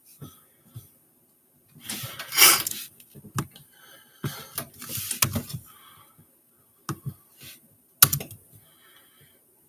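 Scattered clicks, taps and rustling close to the microphone, like hands working at a laptop keyboard. The loudest are a rustling burst about two seconds in and a sharp knock about eight seconds in.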